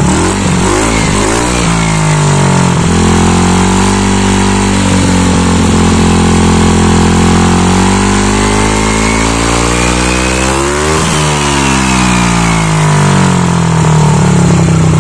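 Modified (loaded) scooter engine with a JVT v3 power pipe exhaust, fitted with a center spring and clutch spring, revved and held at high revs for a long stretch, its pitch dropping and climbing again several times. A very aggressive, angry-sounding exhaust note from the tuned engine.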